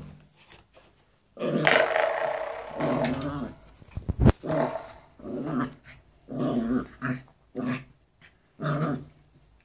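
Wire-haired fox terrier growling in bursts: one long growl, then a string of short ones, with a sharp knock about four seconds in.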